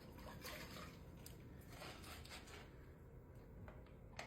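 Faint, soft swishes of wet clay being worked by hand on a spinning potter's wheel over a low steady hum, with a small click near the end.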